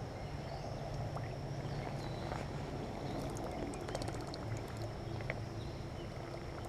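Baitcasting reel being cranked steadily as a lure is retrieved, a low whir with faint scattered ticks, over the flow of creek water.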